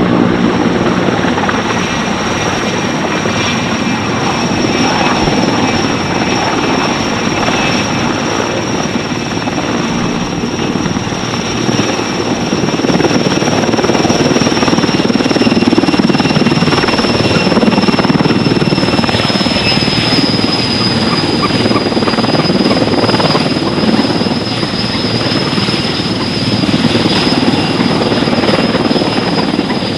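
Sikorsky S-64E Skycrane heavy-lift helicopter in a low hover: steady rotor noise under the high whine of its twin turboshaft engines. The noise swells through the middle, and the whine drops slightly in pitch about two-thirds of the way through.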